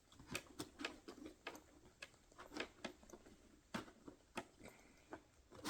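Light, irregular clicks and taps of hand tools being handled and slipped into the pockets of a tool bag.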